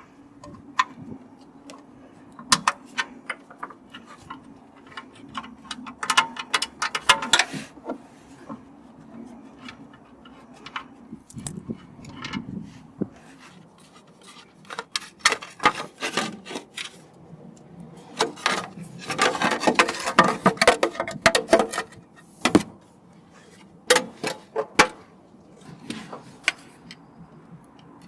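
Hand tools clicking and clinking against the engine of a Porsche 996 as heat-shield and coil-pack bolts are undone, with scattered sharp knocks and two longer runs of rapid clicking, one about a quarter of the way in and one about two-thirds through.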